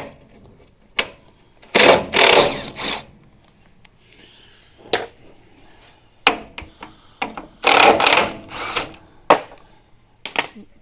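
Handheld power tool run in two short bursts of about a second each, undoing the bolts of a vehicle's rear step. Tools click and knock against metal in between.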